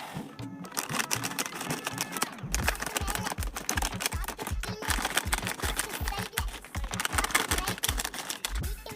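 Background music that picks up a steady beat about two and a half seconds in, over rapid clicking and tapping throughout.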